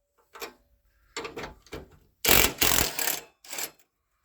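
Socket wrench with a 1/2-inch socket on a wobble extension, run in several short rapid mechanical bursts while backing bolts out of a front-end bracket; the loudest burst comes about halfway through.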